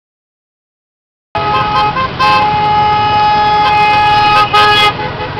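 About a second of dead silence, then road traffic with vehicle horns honking: a few short toots, then a long horn blast held for a couple of seconds.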